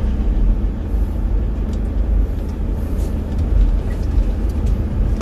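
Toyota Fortuner diesel SUV driving slowly, heard from inside the cabin as a steady low engine and road rumble with a few faint ticks.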